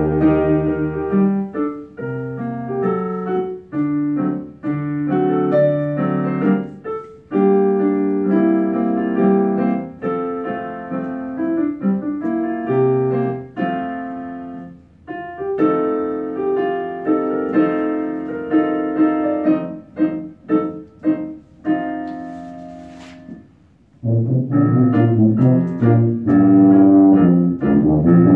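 Piano accompaniment playing a passage of a tuba solo piece, with the tuba coming back in loud and low about 24 seconds in.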